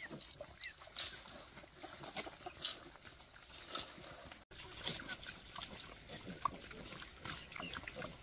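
Wild boars feeding among chickens: grunts and the crisp clicks of chewing and pecking, with short chirpy calls from the poultry.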